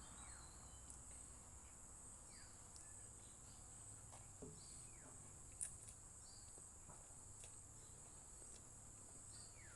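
Near silence: a faint, steady high-pitched hiss in the background, with a few faint ticks, the sharpest about five and a half seconds in.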